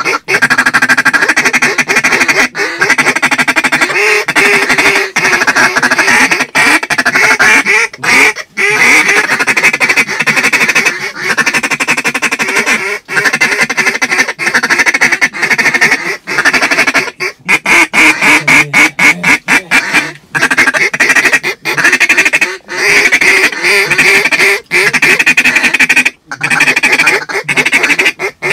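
Loud, nearly continuous duck quacking, many calls overlapping with short breaks.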